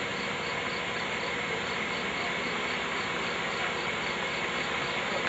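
Steady, even hiss of background room tone and recording noise, with no speech.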